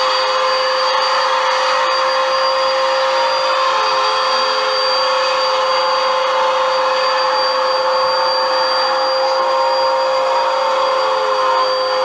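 Upright bagless vacuum cleaner running on carpet: a loud, steady motor whine over a hiss of rushing air, holding one pitch throughout.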